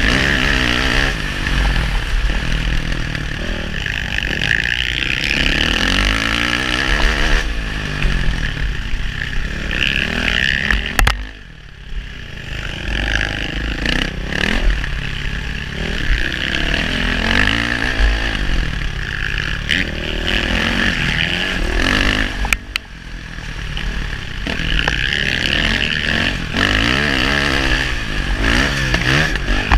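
KTM single-cylinder four-stroke dirt bike engine heard from the rider's seat, revving up and down hard through the gears. The throttle shuts off briefly twice, about a third and about three quarters of the way through, then the engine picks up again.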